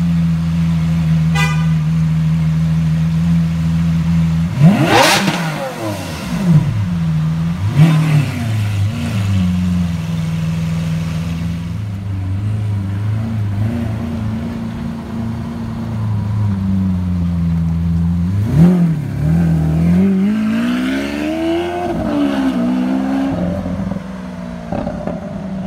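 Lamborghini Aventador SV Roadster's V12 engine idling steadily, then blipped in sharp revs about five seconds in and twice more a few seconds later. Later it revs again and pulls away, the pitch rising and falling.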